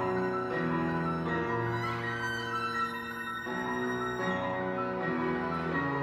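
Violin playing a slow, sustained melody over piano accompaniment, the notes changing every second or so, in a large concert hall.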